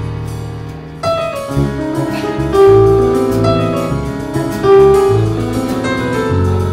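Live jazz trio of piano, bass guitar and drum kit playing. A held piano chord fades over the first second, then the band comes back in with bass notes, piano chords and cymbal strokes.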